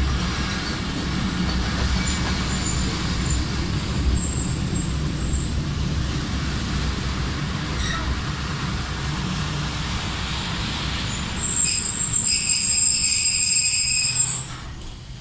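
Steady rumble of road traffic. A high-pitched whistling tone with several overtones joins it for about three seconds near the end, then the sound drops off suddenly.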